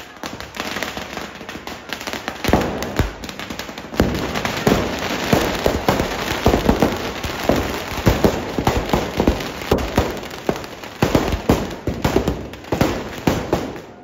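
Firecrackers packed inside a burning Ravan effigy going off in a rapid, dense string of bangs and cracks, growing thicker about four seconds in.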